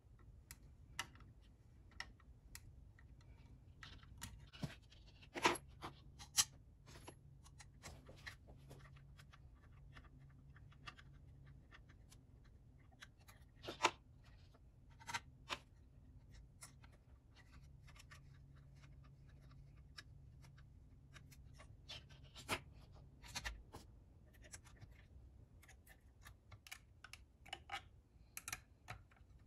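Irregular small clicks, taps and scrapes of 3D-printed plastic parts and small metal hardware being handled and fitted together during assembly, with a few sharper knocks as parts are set in place.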